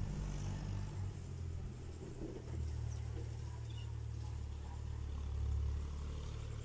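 A low, steady rumble that grows stronger about two and a half seconds in, with a faint continuous high whine above it.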